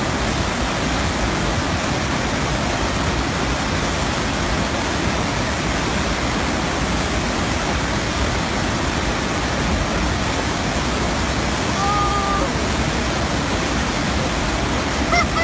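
Steady rushing of a sheet of water pumped over a stationary-wave surf simulator, an even hiss that does not let up.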